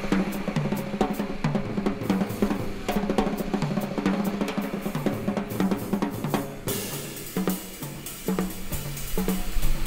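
Backing music: a drum-kit-driven track with snare, cymbals and a bass line keeping a steady beat. About seven seconds in, the drums thin out and a bright, steady hiss joins.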